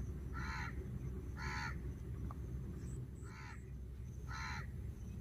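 A crow cawing: four short, harsh caws about a second apart, in two pairs with a pause between them, over a steady low rumble.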